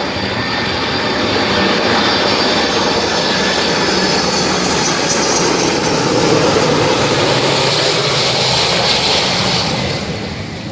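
Jet engines of Air Force One, a Boeing 747-based VC-25A with four turbofans, running as it comes in to land. The roar with a high whine grows louder about two seconds in, holds, then fades near the end.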